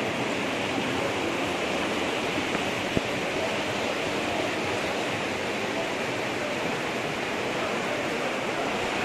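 Steady rushing of floodwater through a town street, an even hiss with no break. A single sharp click about three seconds in.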